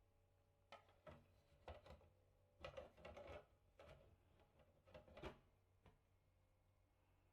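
Faint handling noises: a run of light knocks and clatters, several a second at their busiest, as the ultrasonic humidifier or its packaging is handled, over a faint steady low hum.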